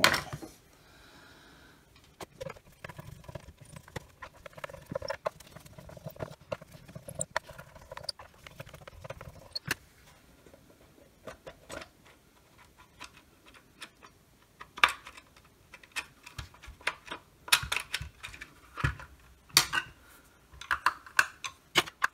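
Irregular clicks, taps and knocks as the plastic case of a FLIR thermal imaging multimeter is handled and its case screws are worked with a Phillips screwdriver. The clicks come more often and louder in the second half.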